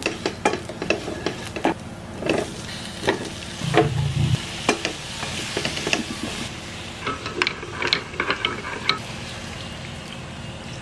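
Wooden spatula stirring and scraping in a nonstick frying pan, with frequent sharp knocks against the pan, over the steady sizzle of vegetables sautéing in oil. The knocks stop after about nine seconds, leaving only the sizzle.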